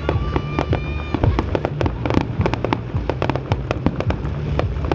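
Fireworks display going off: a rapid, continuous string of sharp bangs and crackles, several a second, over a low rumble.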